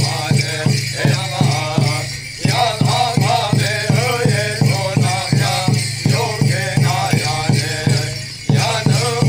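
Hopi corn dance song: a group of voices chanting over a steady drumbeat of about three beats a second, with rattles and jingles shaking in time. The singing breaks briefly twice while the beat keeps on.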